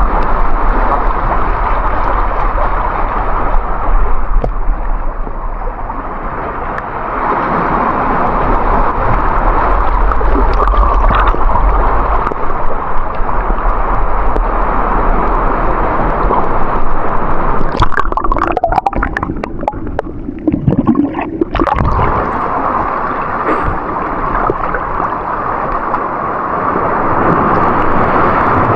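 Seawater sloshing and gurgling in a rocky tide pool as waves wash in, loud and continuous, with a cluster of sharp splashes and knocks about 18 to 22 seconds in.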